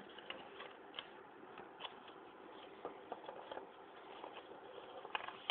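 Sheet of paper rustling and crackling as hands fold and crease it: irregular small crinkles and clicks over a steady faint hiss, with the sharpest crackle near the end.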